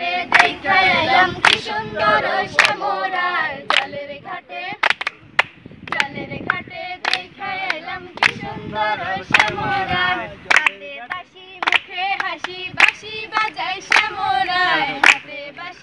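A group of young men and women singing a song together without instruments, clapping their hands in time about once a second.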